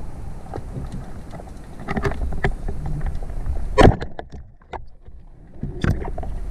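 Underwater sound picked up by a diver's camera: a low watery rumble with scattered clicks and knocks from the diver moving and handling his gear. A sharp knock comes about four seconds in, and the sound turns muffled for a moment afterwards.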